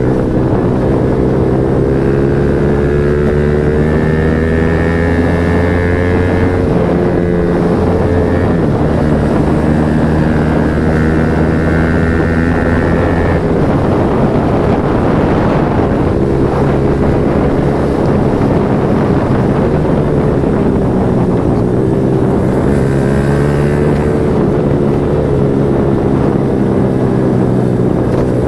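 Yamaha MT-15's 155 cc single-cylinder engine running through an aftermarket Akrapovič exhaust: a loud, steady note whose pitch wavers and shifts every few seconds, rougher and noisier for a stretch in the middle.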